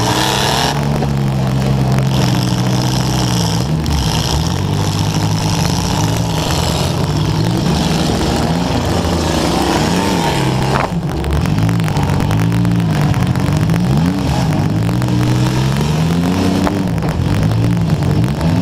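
Demolition derby car's engine revving up and down again and again as it is driven hard, under loud crackling static from a wet microphone.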